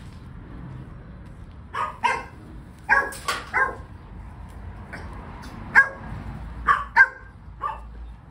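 A dog barking off and on: about ten short barks, some in quick pairs and threes.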